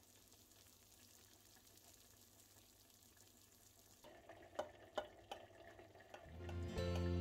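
Knife cutting into a baked lasagne in a glass baking dish, with a few sharp clicks of the blade against the glass, after a faint steady hiss. Music fades in near the end.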